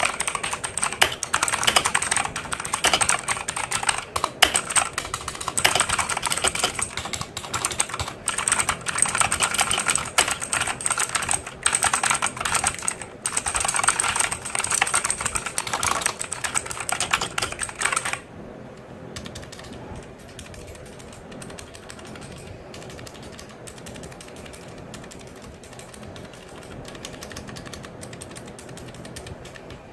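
Fast typing on a mechanical keyboard with clicky Outemu Blue switches: a dense, loud run of key clicks. About 18 seconds in it drops to much quieter, fainter clicking.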